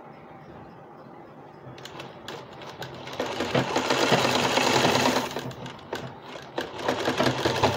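Sewing machine stitching a fabric strip in stop-start runs: a few short runs about two seconds in, one steady run of about two seconds in the middle, then several shorter bursts near the end.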